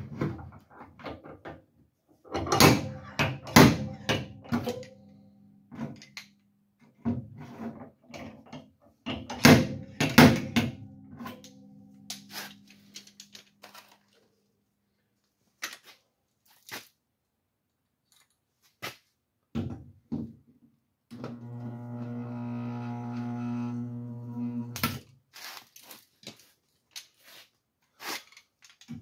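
Clusters of sharp metal knocks and taps on a pickup truck's steel box-side panel during dent pulling, the panel ringing briefly after the hardest hits. Near the end a steady hum lasts about four seconds.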